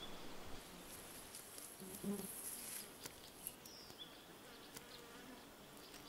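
Faint forest ambience with insects buzzing: a thin high-pitched whine through the first half, and a short lower buzz about two seconds in.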